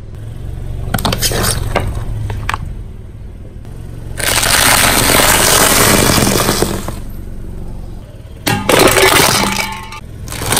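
A car tyre rolling slowly over large crispy round crackers, cracking and crunching them into pieces over a low engine hum: a few sharp cracks first, then long spells of dense crackling.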